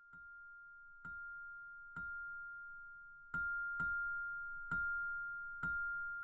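Background music: one steady high tone held throughout, with seven soft struck hits at uneven spacing that grow louder as it goes on.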